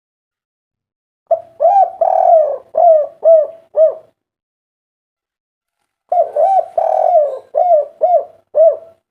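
Spotted dove cooing: two song phrases, each a run of about six coos that ends in short, clipped notes, with a pause of about two seconds between them.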